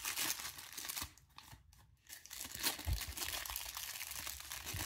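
Clear plastic wrapping crinkling and rustling as it is worked off a watch by hand, with a short quieter pause about a second in.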